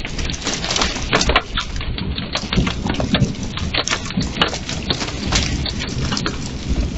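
Quarter-size hail and rain falling on a wooden deck: a steady wash of rain with many irregular sharp knocks as hailstones strike.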